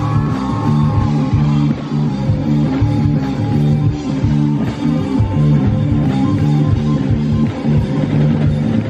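Rock band playing live in an instrumental passage without singing: electric guitars over bass and drum kit.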